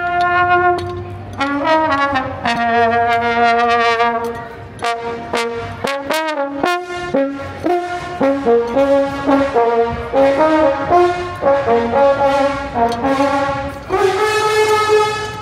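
Solo trombone played by a street musician: a melody of single held notes, with a few sliding pitch bends around the middle and a long sustained note near the end.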